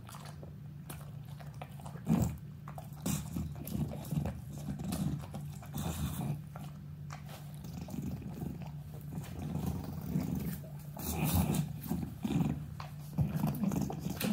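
English bulldog chewing and licking up pieces of tomato, with wet smacks and clicks of its jaws that come in irregular bunches.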